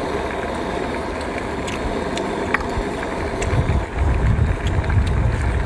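Wind rumbling on the microphone, with stronger low gusts starting about three and a half seconds in. A few faint clicks of clam shells being handled.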